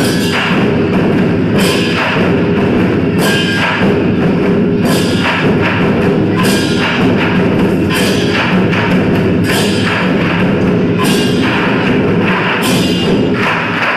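Ensemble of Chinese barrel drums beaten steadily with sticks, with hand cymbals crashing about every one and a half seconds.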